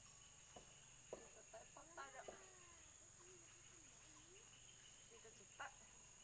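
Near-quiet forest background with a steady thin high whine, a few soft clicks, and a brief faint bird call about two seconds in.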